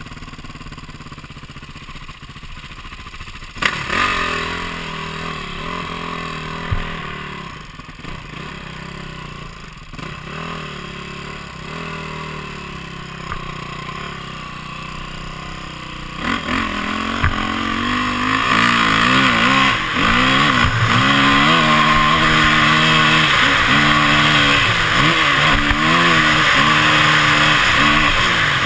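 Dirt bike engine, first running low and steady, then revved harder as the bike gets under way on a dirt track. From about halfway through the engine pitch climbs and drops again and again, roughly once a second, as the throttle is opened and closed and gears are changed. There is a sharp knock a few seconds in.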